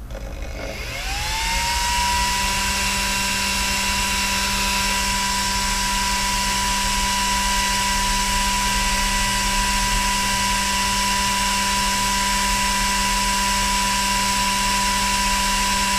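Small 12-volt cooling fan switching on: it spins up with a rising whine in the first second or so, then runs steadily with a high whine over rushing air. Right at the end it is switched off as its thermistor cools, and the whine starts to wind down.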